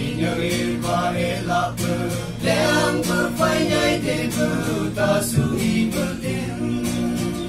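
A small group of young men singing a song together, accompanied by a strummed guitar.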